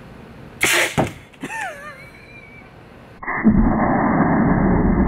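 A homemade pneumatic burrito air cannon firing: one sudden sharp blast of released air under about 110 PSI, less than a second in. About three seconds in, a loud, muffled, steady rushing noise with no highs takes over and runs on.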